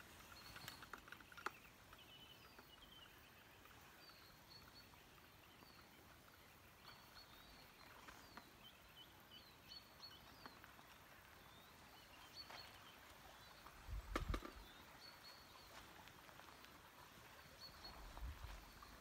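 Quiet woodland ambience with small birds chirping on and off throughout. There are a few faint scuffs and one louder bump about fourteen seconds in.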